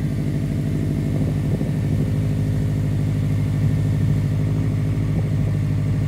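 Subaru WRX STI's turbocharged 2.5-litre flat-four engine idling steadily.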